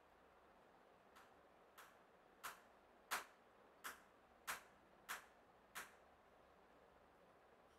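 Hand screwdriver turning a screw into the table to hold down the press's base bar, a short sharp tick with each turn, about eight ticks roughly two-thirds of a second apart, then stopping.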